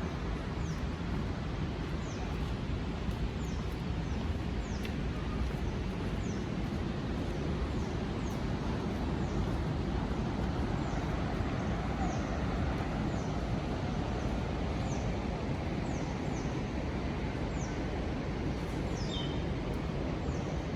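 A steady rushing noise, with a bird repeating short, high, falling chirps about once a second.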